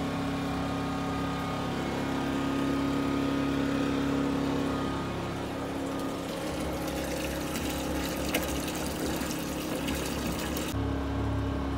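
Small portable generator running steadily. From about six seconds in, the splash of liquid pouring from a hose into a plastic barrel joins the engine's hum.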